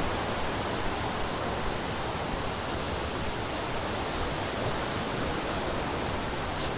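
Steady rush of a waterfall and its cascades, an even, unbroken roar of falling water.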